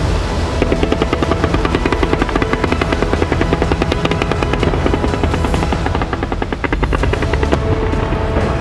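Salute fireworks going off in rapid succession: a fast string of sharp bangs, many per second, starting about half a second in and easing off near the end, over a steady low rumble. Steady tones of music run underneath.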